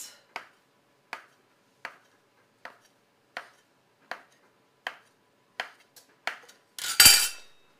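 Metal bench scraper chopping a rope of soft pretzel dough into bites against a wooden counter: a sharp tap with each cut, about one every three-quarters of a second. Near the end comes one louder, longer clatter.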